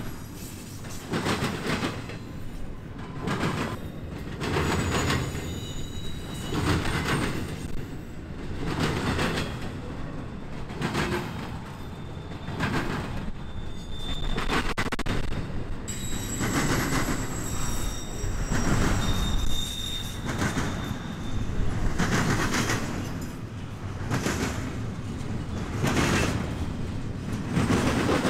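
Double-stack intermodal freight train rolling past close by: steel wheels clicking over the rail joints about once a second, car after car, with faint high wheel squeal now and then.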